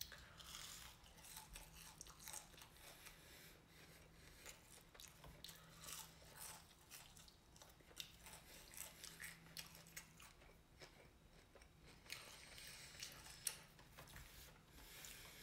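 A person chewing crunchy fried catfish nuggets with soft, irregular crunches and mouth noises, quiet overall.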